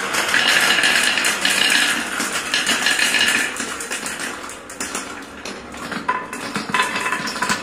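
Many marbles rolling and clattering down a marble run. For the first few seconds there is a steady rolling rattle through a plastic spiral track. After that come many small clicks as marbles knock against each other and against a wooden bowl and track.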